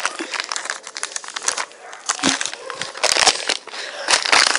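Dry leaves and twigs rustling, crinkling and snapping in irregular bursts as they are handled and pushed up against a small, newly lit fire.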